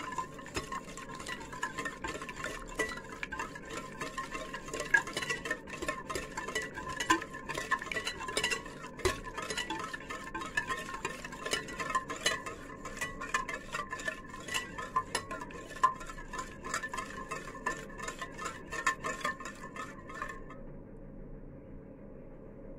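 A utensil rapidly beating a wet yogurt, oil and egg batter in a bowl, with quick repeated clinks and scrapes against the bowl's side. The beating stops suddenly about 20 seconds in.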